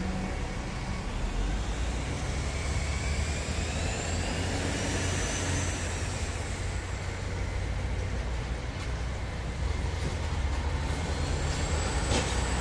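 Heavy military trucks towing trailers and a Humvee driving past, their diesel engines running with a steady low rumble. A high whine rises and then falls in pitch between about two and seven seconds in.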